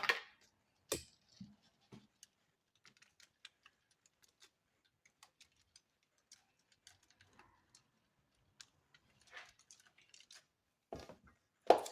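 Light, irregular clicks and ticks from grated Parmesan being shaken out of its container over lasagna, with a few louder knocks near the start and the end.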